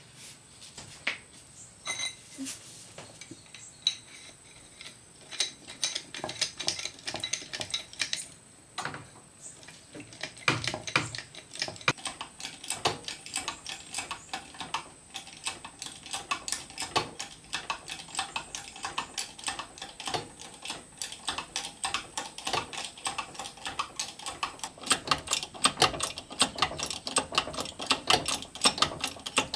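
Rapid, irregular metallic clicking and tapping: sparse at first, then many clicks a second after about ten seconds.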